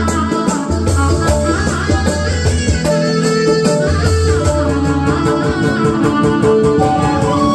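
Roland Fantom 06 synthesizer playing a music passage: a plucked, guitar-like melody with pitch slides over a held bass and a steady beat.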